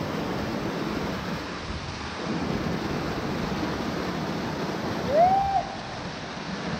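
Steady rush of water from a small cascade spilling into a canyon pool, mixed with wind buffeting the microphone. About five seconds in, a brief rising tone stands out as the loudest sound.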